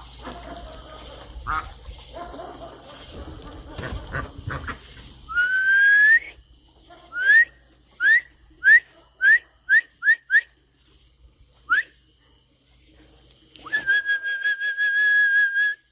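A person whistling to call a dog. One long rising whistle comes first, then a run of short, quick rising whistles, then a long steady whistled note near the end.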